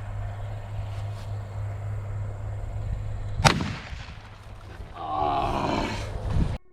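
A single 12-gauge shotgun shot about halfway through, firing a heavy slug, followed about a second and a half later by a short vocal yell.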